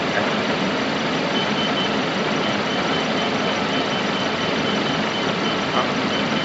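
Steady running noise of an idling engine being decarbonized by an oxy-hydrogen carbon cleaning machine, which is feeding it gas. A faint high-pitched pulsing tone starts about a second and a half in.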